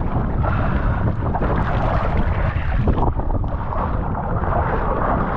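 Strong wind buffeting an action camera's microphone, with sea water rushing and splashing underneath.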